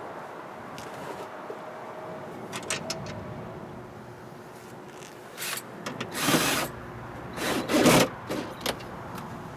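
Window regulator and door parts being worked by hand inside a car door: scattered light clicks and knocks, with two louder scraping rubs in the second half.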